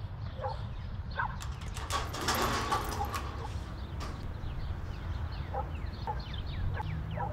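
Ambience with animal calls: scattered short calls and, from about halfway, a run of quick falling whistles, over a low steady rumble.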